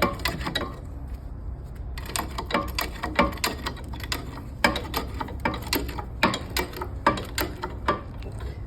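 Run of sharp metallic clicks, two or three a second with a short pause about a second in, from a jack being pumped to press a bearing out of a skid steer wheel hub.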